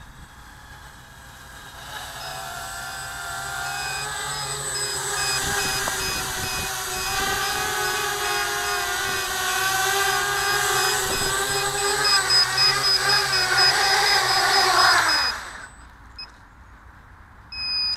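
Quadcopter's four Multistar 1900 kV brushless motors with 7035 propellers spooling up about two seconds in, then buzzing steadily with shifting pitch, growing louder and pulsing near the end. The motors wind down with a falling pitch and stop suddenly, followed by a short electronic beep near the end.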